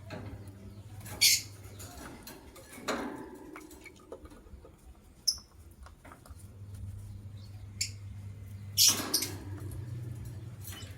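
White lovebirds giving short, sharp, high chirps, about half a dozen scattered a second or two apart, the loudest about a second in and near the end, over a faint low steady hum.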